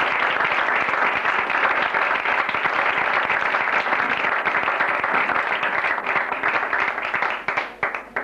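Audience applauding, a dense patter of many hands clapping that thins into a few scattered claps near the end and then stops suddenly.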